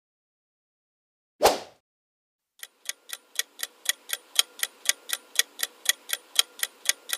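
A single short transition sound effect about a second and a half in. After it comes a clock-tick countdown timer sound effect, ticking evenly about five times a second, for the answer time of a quiz question.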